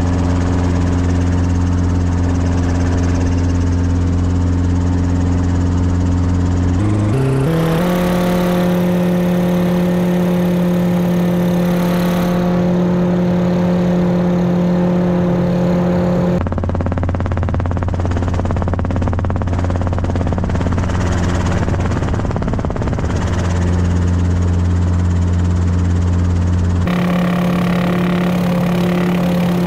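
Steady engine and rotor drone of a light two-seat helicopter, heard from inside the cockpit, with a low, even hum. The pitch jumps abruptly three times, with a quick stepping rise about seven seconds in, where the footage is cut.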